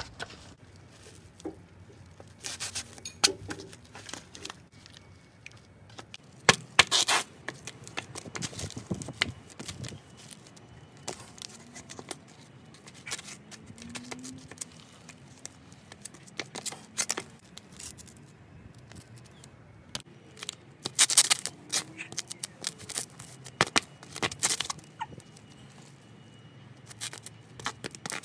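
Small, brittle objects being crushed underfoot by flip-flops on concrete: sharp crunches and cracks that come in irregular bursts with pauses between, alongside the scrape and slap of the sandals on the ground.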